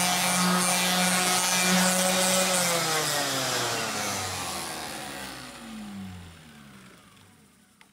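Electric random orbital sander running steadily while sanding a cured UV resin coat on walnut, then switched off about two and a half seconds in; its motor pitch falls steadily as it winds down to a stop.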